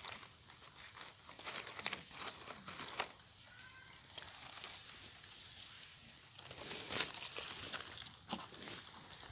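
Dry and damp leaf litter rustling and crackling in irregular bursts as a hand picks through the forest floor. The crackling is densest about seven seconds in.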